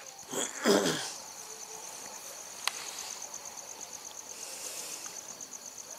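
A cricket chirping steadily in a high, fast-pulsing trill. A short louder sound comes about half a second in, and there is a single sharp click a little before halfway.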